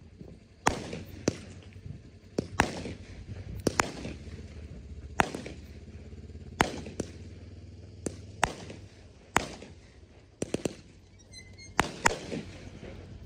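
Aerial fireworks bursting in quick succession: about sixteen sharp bangs at irregular spacing, several in close pairs, each trailing off in an echo.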